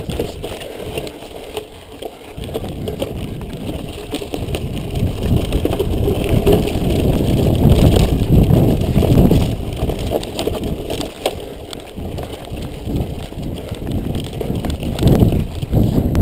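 Mountain bike ridden fast over a rough dirt trail, heard from a camera on the rider: wind buffeting the microphone, with the bike rattling and knocking over the bumps. It grows louder in the middle as the rider picks up speed on a grassy descent.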